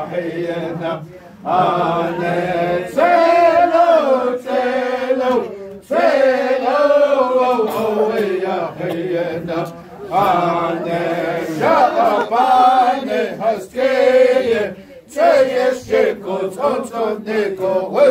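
Voices chanting a Navajo shoe game (Késhjéé') song in phrases with short pauses for breath between them.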